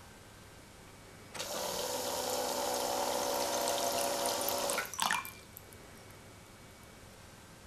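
Small electric pump in a toy Claas combine harvester running for about three and a half seconds with a steady whine, pushing a stream of water out of the unloading auger that splashes into a glass. The pump cuts off about five seconds in and the stream ends in a few drips.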